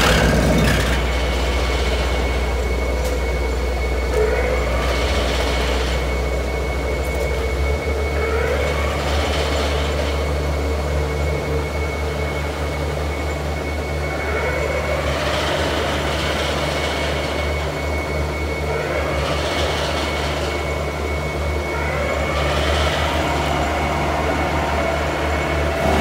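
Concrete sheet pile being driven: the piling rig's diesel engine and hammer run steadily under load, with a low hum that shifts about a third of the way in, a constant high whine, and a swell every four to five seconds.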